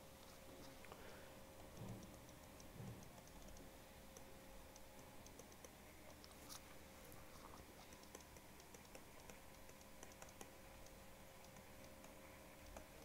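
Near silence with faint, irregular light clicks of a stylus tapping as handwriting is written, over a steady faint electrical hum, with two soft low thumps about two and three seconds in.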